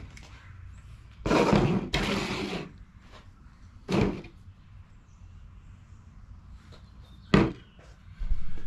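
Objects being handled on a workbench: two short, noisy scraping sounds just over a second in, a thump about four seconds in, and a sharp knock near the end.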